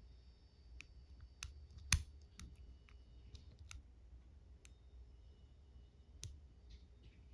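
Small, sharp, irregular metallic clicks and ticks of a dimple lock pick and tension tool working the pins inside an Ultion 3-star dimple lock cylinder, with a louder click about two seconds in and another about six seconds in.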